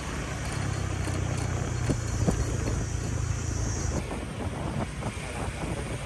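Motorbike engine running steadily at low revs, with two sharp knocks about two seconds in.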